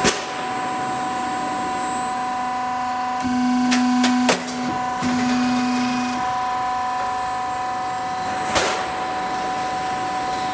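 Half-round gutter roll forming machine running, a steady mechanical hum with high constant tones. A louder low hum comes in about three seconds in and lasts about three seconds, and a few sharp clicks sound at the start, around four seconds and near eight and a half seconds.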